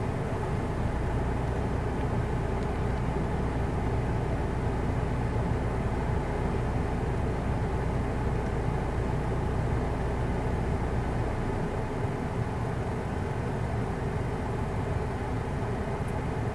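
Motor vehicle engines idling, a steady low hum that eases off a little after about eleven seconds.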